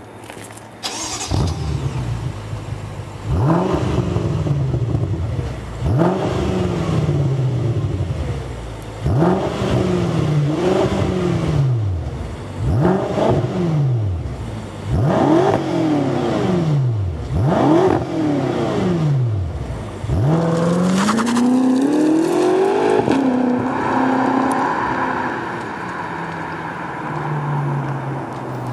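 BMW F10 M5's twin-turbo V8 through a RacePrecision GTS stainless exhaust, blipped about seven times while standing, each rev rising and falling quickly because the ECU caps stationary revving. Near the end the car pulls away, the engine note climbing in one longer run and then settling to a steadier, lower pitch.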